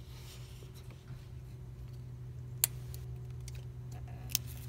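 A plastic engine-bay wiring connector being worked by hand gives two sharp clicks, a loud one about two and a half seconds in and a softer one near the end. A steady low hum runs underneath.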